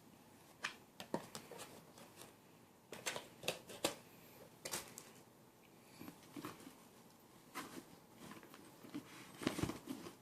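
Irregular soft clicks and rustles of products and packaging being handled, with a louder clatter near the end.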